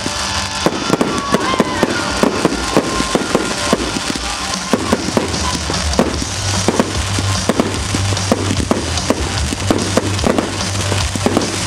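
Fireworks display: aerial shells bursting overhead in a rapid, continuous run of bangs and crackles, several a second.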